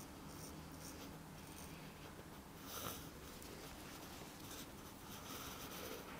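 Straight razor scraping stubble off a man's face through shaving gel, in short rasping strokes, with a louder stroke about three seconds in and another run of strokes near the end.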